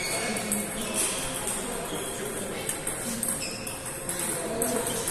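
Table tennis hall: celluloid-type ping-pong balls clicking irregularly off bats and tables at several neighbouring tables, with faint voices in the background.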